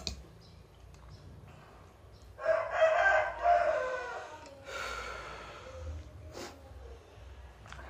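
A rooster crowing once, starting about two and a half seconds in: a single pitched call of about two seconds that trails off more weakly. A few light clicks of a metal spoon on a plate come before and after it.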